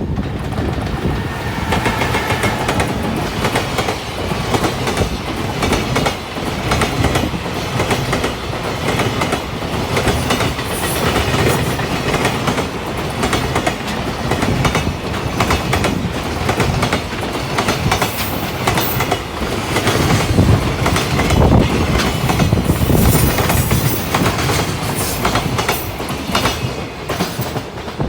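A freight train of container wagons hauled by a JR Freight EF210 'Momotaro' electric locomotive passing close by at speed. Its wheels clatter steadily over the rail joints, and the sound is loudest about two-thirds of the way through.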